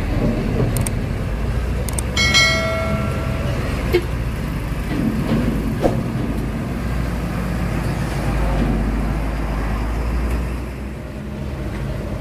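Heavy tanker truck's diesel engine running low and steady as it crawls through deep potholes, with several sharp knocks along the way. A brief high-pitched tone sounds about two seconds in.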